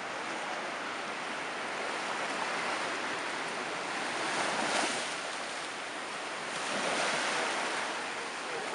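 Sea waves washing onto the beach, the wash swelling about halfway through and again a little later.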